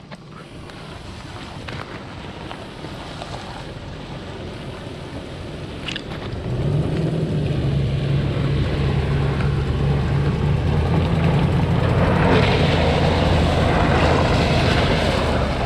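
Toyota Sequoia SUV's engine working as it drives through a creek, with water rushing and splashing around it. The engine note comes up and holds steady about six seconds in, and the splashing grows louder near the end.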